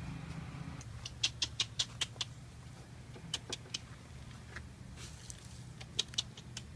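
A person clicking their tongue in short quick runs to call a pony, the clicks coming about five a second, over a low steady hum.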